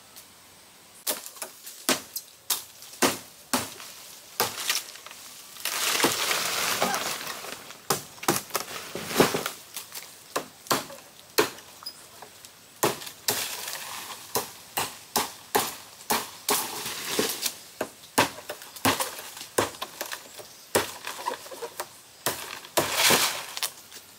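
Irregular sharp chopping strokes of a blade cutting forest vegetation, about one a second. A longer stretch of leaf and frond rustling comes about six seconds in.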